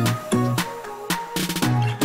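Background electronic music with a steady drum beat and bass line.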